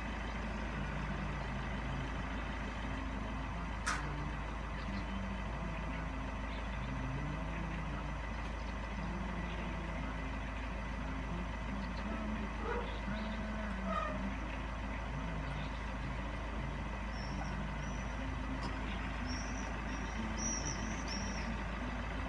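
Steady low rumble of an idling vehicle engine, with a single sharp click about four seconds in and a few faint high bird chirps near the end.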